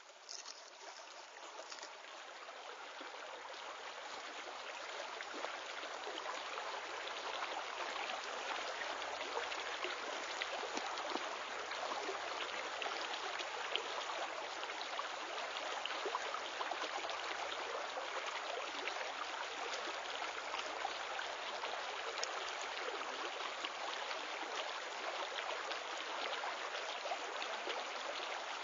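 Steady running water, a continuous rushing with fine trickling, fading in over the first few seconds and then holding level.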